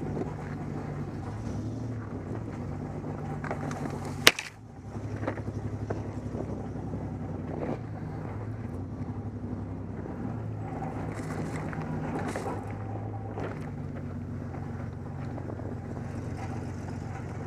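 Truck engine running steadily while driving, with a single sharp knock about four seconds in.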